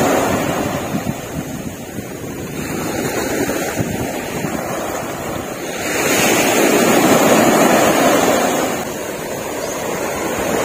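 Surf breaking and washing up a beach in the shallows, a steady wash of water with a bigger swell of sound about six seconds in that fades back after three seconds or so.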